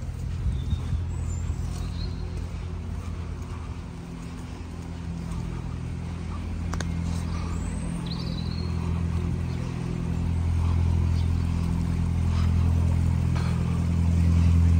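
A steady low engine hum, unchanging in pitch, that grows louder over the second half, with a few faint short high chirps over it.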